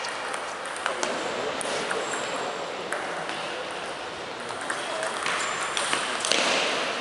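Table tennis ball clicking sharply against the paddles and the table during a rally, a string of irregular ticks over steady background hall noise.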